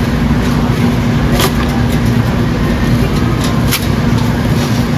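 Steady mechanical hum from supermarket refrigerated display cases and ventilation, with a constant low tone. A couple of light clicks come from meat packages being handled.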